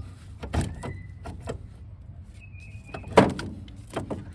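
Metal knocks and clanks from hand work on a car's front suspension while freeing the strut and CV axle, the loudest a little past three seconds in, with a brief high squeak just before it.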